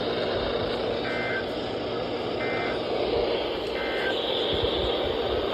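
Three short two-tone data bursts of the EAS/SAME End of Message code, sent over NOAA Weather Radio about 1.3 seconds apart, with steady radio hiss throughout. They mark the end of the warning broadcast.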